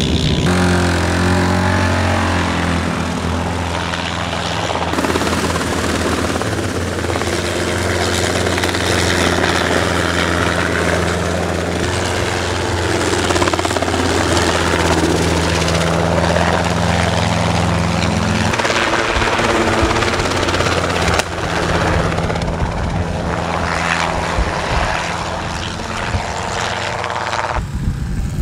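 A helicopter running close by mixed with an all-terrain vehicle's engine, a steady low engine tone under a noisy wash. The sound changes abruptly a few times, at about 18 seconds, 21 seconds and near the end.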